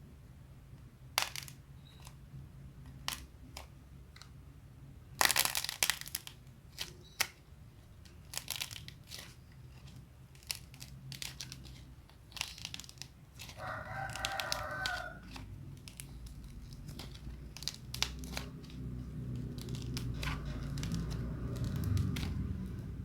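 Cracking clay being squeezed and pressed by hand, giving irregular crackles and sharp snaps, with a dense run of them about five seconds in. It was recorded without an added microphone, and some of the clay has already hardened.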